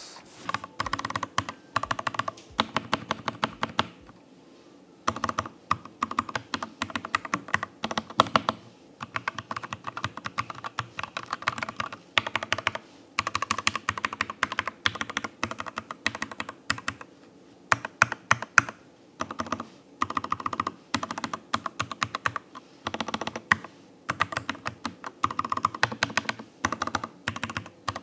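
Typing on a Keychron K8 mechanical keyboard fitted with Melgeek PBT keycaps: fast runs of keystrokes broken by short pauses. The PBT caps give a calm, muted 'koto-koto' sound rather than the clattery 'kacha-kacha' of the stock ABS caps.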